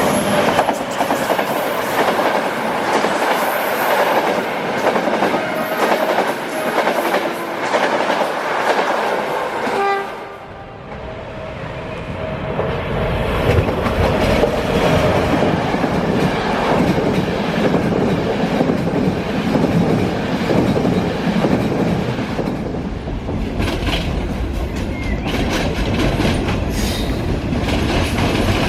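A train running past on the track, wheels clattering over the rails, with a brief pitched note about ten seconds in. From about twelve seconds a heavy low rumble builds and holds as the train goes by.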